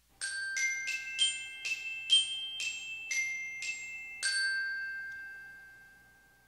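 Short outro jingle: a quick tune of about ten struck, bell-like notes, the last one ringing out and fading away.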